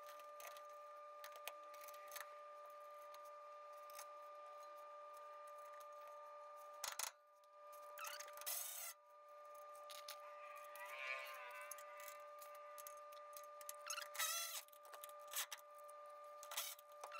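Hand ratchet clicking in short runs, with small metal clinks, as nuts are tightened onto the bolts of a front air bag's upper mount. A faint steady hum runs underneath throughout.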